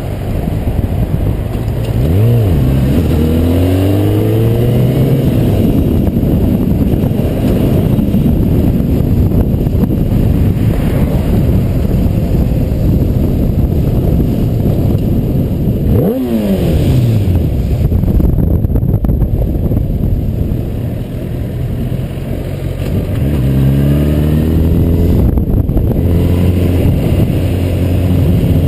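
Kawasaki ZX-10R sport bike's inline-four engine riding in traffic, revving up through the gears about two seconds in and again near the end, with a dip and climb in revs about halfway. Wind rush on the microphone runs under it.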